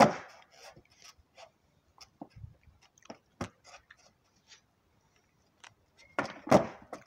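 Skateboard on concrete: scattered sharp clicks and knocks from the wooden deck and wheels as the rider shifts his feet on it, then a louder clatter near the end as he pops the board for a trick.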